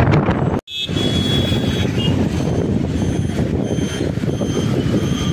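Wind and engine noise from riding on a motorcycle, with a thin high electronic beeping that comes and goes. The sound cuts out for an instant under a second in.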